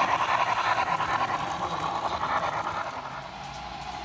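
Model steam locomotive and train running past on the layout track: a steady whirring rumble of wheels on rails with fast fine clicking, fading away about three seconds in as it moves off.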